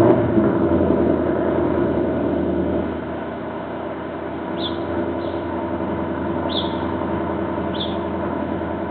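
A vehicle engine running. It comes in suddenly, is loudest for the first three seconds or so and then settles to a steady lower level. A few short bird chirps sound through the second half.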